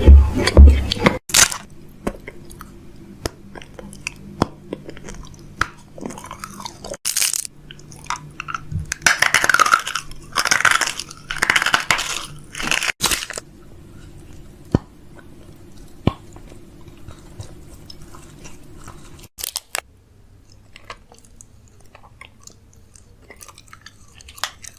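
Irregular crunching and crackling with many sharp clicks, loudest in a run of crunchy bursts about nine to thirteen seconds in. A low steady hum runs underneath and stops about nineteen seconds in.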